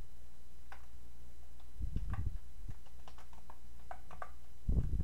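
Scattered faint clicks of a computer keyboard and mouse while editing code, over a steady low hum. Two short low rumbles, about two seconds in and near the end.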